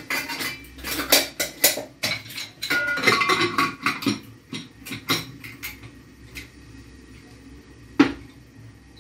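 Metal pots and lids clattering and clanking as a pot of water is handled and set on the stove, with one loud sharp clank about eight seconds in.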